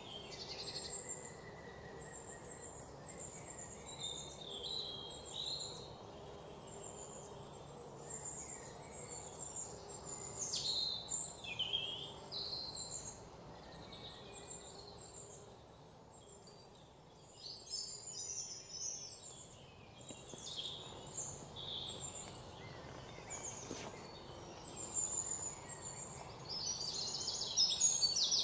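Many birds chirping and calling: short whistled notes that rise and fall, scattered throughout over a soft steady background hiss. Near the end a fast trill builds and grows louder.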